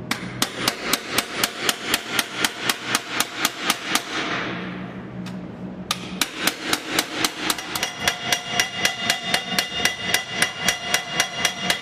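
Hand hammer beating on metal, car-body restoration work: quick even blows about four a second, in two runs with a short pause about four to six seconds in, the later blows ringing.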